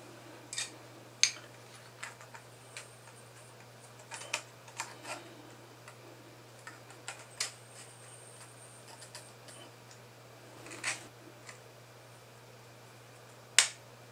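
Hard 3D-printed plastic parts clicking and tapping as they are handled and fitted into a printed alignment guide: scattered light clicks at uneven intervals, with two sharper clicks about a second in and near the end.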